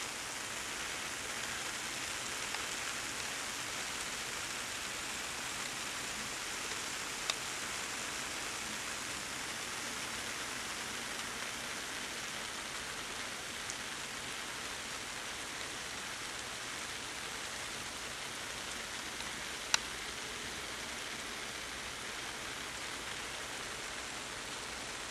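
Water spray pattering steadily onto leafy shrubs and foliage, an even hiss, broken by two brief sharp clicks, one about seven seconds in and one about twenty seconds in.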